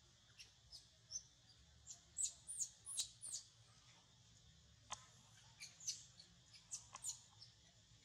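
Infant macaque crying in short, high-pitched squeaks that fall in pitch, coming in two bouts: one about two seconds in and another about five seconds in.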